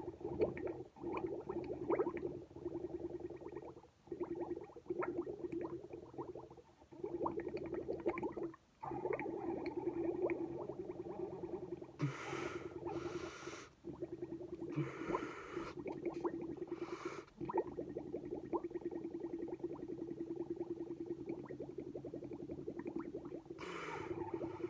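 Milk bubbling and gurgling as air is blown through a drinking straw into a glass, a steady stream of rapid little pops broken by a few brief gaps. Several times, a short hissing breath is drawn in through the nose.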